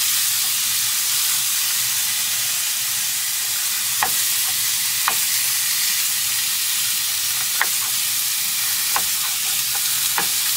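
Chicken pieces sizzling steadily in a frying pan over a gas stove, with a few light taps and scrapes as a spatula chops the pieces down in the pan.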